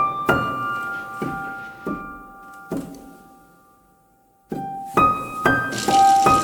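Piano music from a film score: single struck notes ringing out and decaying, fading almost to silence about four seconds in, then new notes entering. A hissing swell rises over the notes near the end.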